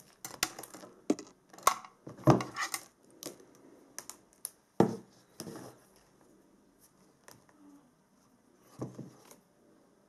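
Hand wire strippers clicking and snipping as insulation is stripped off thin balance-lead wires, with the wires rustling as they are handled. The sharp clicks come in a cluster over the first three seconds, with a single loud one near five seconds and a few more near nine seconds.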